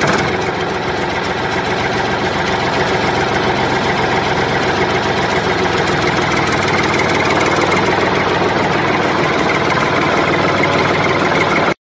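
Diesel tractor engine idling steadily, cutting off abruptly near the end.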